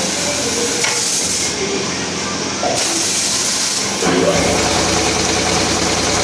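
Vertical airless packaging machine running: a steady hiss, joined about four seconds in by a louder motor hum.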